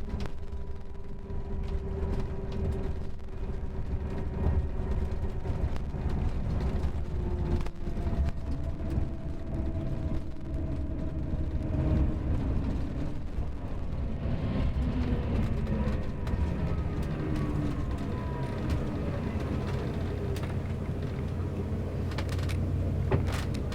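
Mercedes-Benz OM-457LA six-cylinder diesel engine of a Marcopolo Paradiso G7 double-decker coach running under way, with a steady low rumble. Its tones drift down in pitch over the first several seconds, and several gliding tones rise and fall in the second half. A couple of sharp clicks come near the end.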